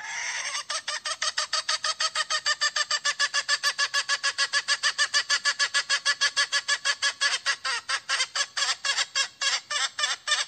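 A red junglefowl hen gives the 'koi' call, the call a hen uses to attract a rooster. It opens with a longer note, then runs into a fast, even train of short clucking notes, about six a second, which space out slightly near the end.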